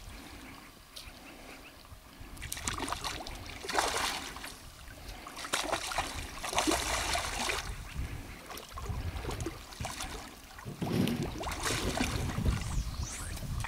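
Hooked fish splashing and thrashing at the water's surface while being played on a fly rod, in several bursts of a second or two.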